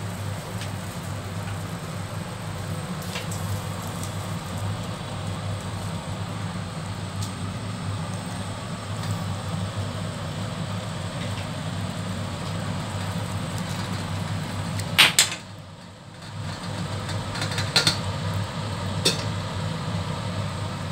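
A steady low machine hum in a kitchen while a stainless-steel pot of water with coriander in it boils on the stove. About three quarters of the way through come a few sharp metallic clinks, the loudest two close together.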